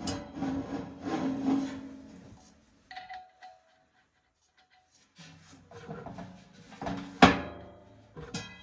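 Furnace parts and tools being handled: scraping and clattering, a pause, then more knocks, the loudest a sharp knock about seven seconds in.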